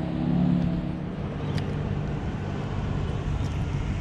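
A motor's steady low drone, strongest in the first second or so and then fading, over a constant background hiss; one small click about a second and a half in.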